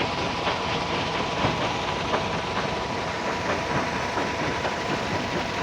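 Heavy construction machinery running steadily, with a thin steady whine and scattered metallic clicks and clanks.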